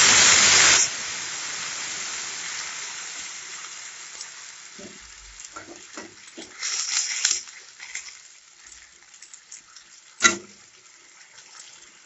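Water poured into a hot kadai of potatoes and peas frying in mustard oil sets off a loud hiss that stops abruptly about a second in, then a sizzle that slowly fades as the pan bubbles. A spatula scrapes and stirs around seven seconds in, and there is one sharp knock, the spatula against the pan, near the end.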